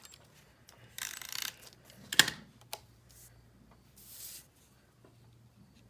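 Handling of paper and cardstock on a craft table: a few short rustles and small ticks, with one sharp click about two seconds in, as a stamped paper piece is mounted.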